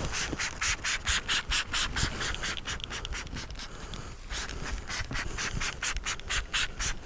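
Hand trigger spray bottle squirting soapy water onto a tyre's bead, a rapid run of short hissing sprays about three a second, with a brief pause about halfway through. The bead is being lubricated before the tyre is levered off the rim.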